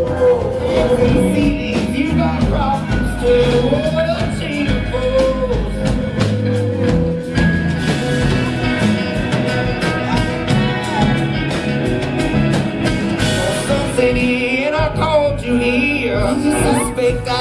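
Rock band music with a singer: drums, guitar and sung vocals.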